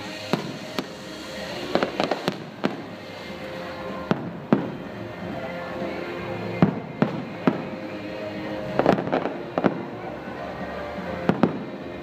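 Fireworks going off: a dozen or so sharp bangs at uneven intervals, some in quick clusters of two or three, over background music.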